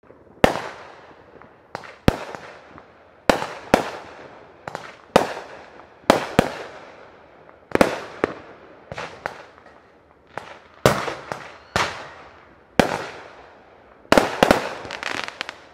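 Neighbourhood consumer fireworks going off: an irregular string of sharp bangs, about one or two a second, each trailing off in a rolling echo, with a denser cluster of bangs near the end.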